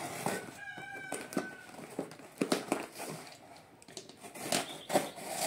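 Utility knife slicing along the packing tape of a cardboard box: scratchy cuts, tape crackle and cardboard knocks. About a quarter second in, a short, steady high-pitched squeal lasts just over a second.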